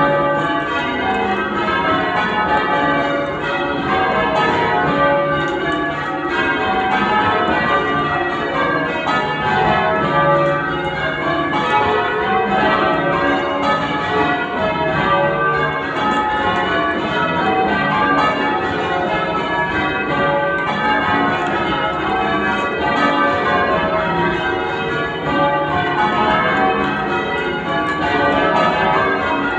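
Church tower bells from a ring of ten, rung in changes: an unbroken stream of strikes at different pitches, each bell ringing on over the next.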